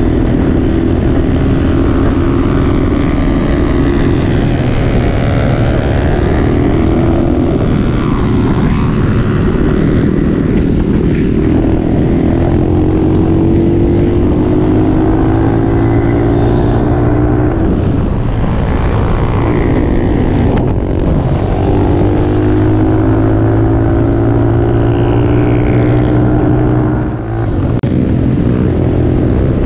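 Small single-cylinder mini bike engine under hard throttle at speed, its note climbing in long pulls and dropping back several times, with a brief let-off near the end. A constant wind rush on the microphone runs underneath.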